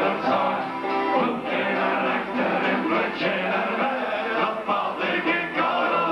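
Live band playing a song: guitar and drums under sung vocals.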